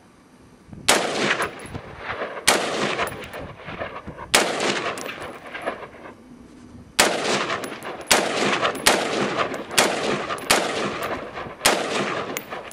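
AR-15 rifle fired in single semi-automatic shots, about nine of them spaced one to two seconds apart, with a longer pause after the third. Each sharp report is followed by a long echo that rolls off.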